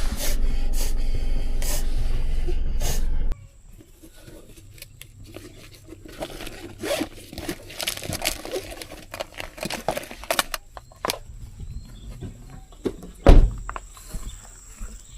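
A loud, steady low motor rumble that cuts off abruptly about three seconds in. Quiet follows, with scattered light knocks and scrapes and one louder thump near the end.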